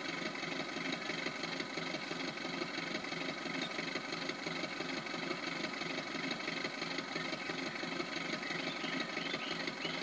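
Benedini sound module in an RC biplane model playing a recorded de Havilland Tiger Moth engine at a steady idle through the model's speaker, giving the even, rhythmic beat of a four-cylinder Gipsy Major.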